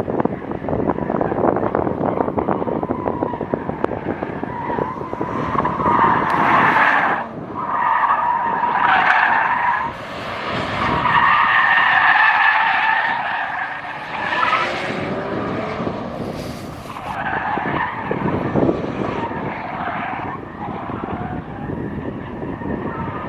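Car tyres squealing hard through turns on an autocross course, in repeated bursts of a few seconds each. Heavy wind buffeting on the microphone lies under them.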